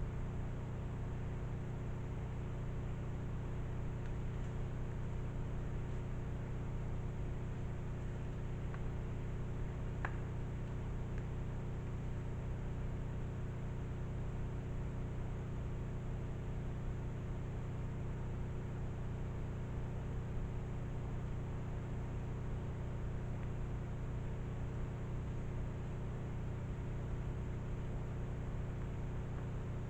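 Steady electronic hum and hiss with several fixed low tones, the recording's own noise floor, with one faint click about ten seconds in.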